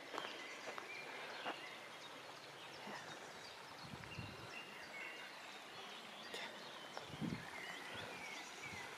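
Quiet riverside ambience: a steady hiss of shallow river water running over stones, with faint bird chirps and a few soft low thumps, one about four seconds in and one near seven seconds.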